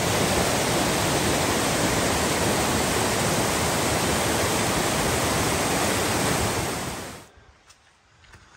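Steady loud rush of white water from the Amicalola Falls cascade, cutting off about seven seconds in. After that only faint footsteps on a leafy trail remain.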